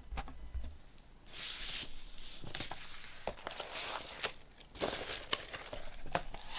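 Vinyl record packaging being handled: paper and card sleeves sliding and rustling in several short swishes, with light taps and clicks against the cardboard and a soft bump at the start.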